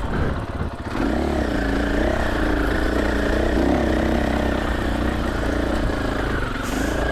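KTM 500 EXC-F dirt bike's single-cylinder four-stroke engine running on the trail, its pitch rising and falling as the throttle opens and closes, with a short drop in level in the first second.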